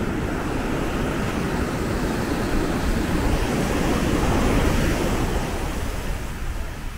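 Ocean surf washing onto a sandy beach, mixed with wind rumbling on the microphone. It grows louder about four seconds in and eases off near the end.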